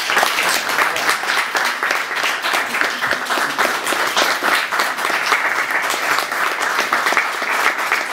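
Audience applauding: many hands clapping, dense and steady, right after the music has ended.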